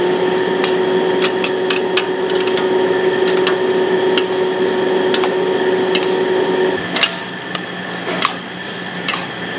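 Metal wok ladle and spatula scraping and clanking against a steel wok as diced pork fat is stirred, in irregular sharp knocks. A steady hum runs underneath and cuts off about seven seconds in.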